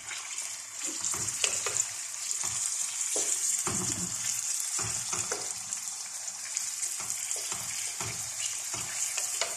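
Chicken pieces sizzling in hot oil in a wok, with a steady high hiss. A wooden spatula stirs them, scraping and knocking against the pan at irregular moments.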